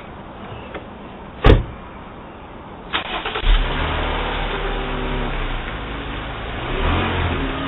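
One sharp bang about one and a half seconds in. About three seconds in, a truck engine cranks and starts, then runs steadily, rising briefly near the end as it is revved.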